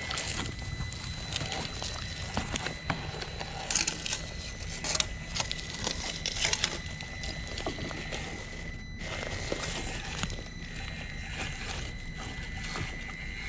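Traxxas TRX-4M Bronco RC crawler's small electric motor running with a thin, steady high whine, under scattered cracks and clicks as its tires crunch over splintered wood and debris. The sound drops away briefly about nine seconds in.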